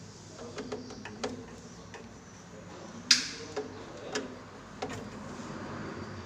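Scattered light clicks and taps of refrigerator wiring and connectors being handled and fitted, with one sharper click about three seconds in.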